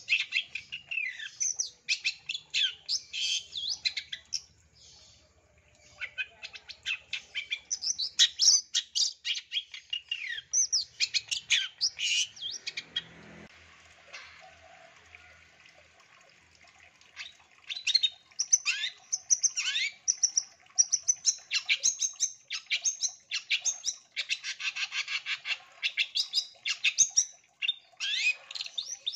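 Long-tailed shrike (cendet) singing a loud, fast song of sharp, high chattering notes and quick falling slurs, in long runs broken by a pause of a few seconds about halfway through.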